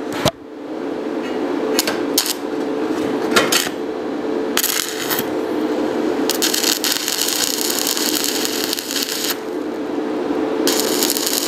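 Stick (MMA) welding arc from a 3 mm rutile electrode at 80 amps, crackling as it is struck and broken off again and again. This is welding with arc breaks, the electrode pulled away sharply each time so the arc goes out. A few short snaps come first, then longer stretches of crackling, one lasting about three seconds, over a steady hum.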